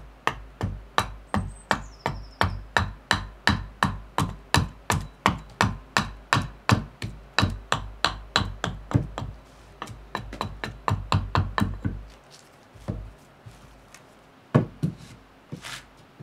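Small carving axe hewing a birch spoon blank held on a chopping block: quick, even blows about three a second for some twelve seconds, then three single blows spaced out near the end.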